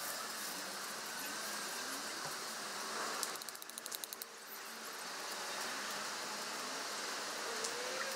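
Steady outdoor background hiss with a short run of rapid clicks about three seconds in, from hand work at the tent's base.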